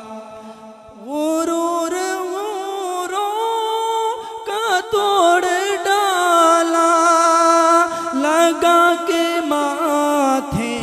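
A man singing a naat solo into a microphone, with no instruments: after a short breath-pause the voice comes in about a second in with long, drawn-out, wavering notes.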